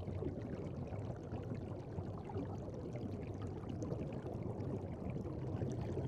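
Soft, steady water sound, a gentle trickling and bubbling with many small scattered ticks.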